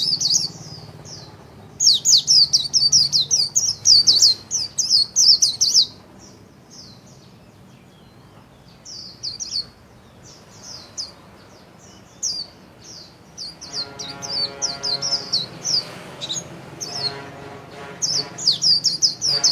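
White-eye (vành khuyên) singing its fast high-pitched warbling 'líu' song: quick runs of chirps in two long bursts, with scattered notes between them.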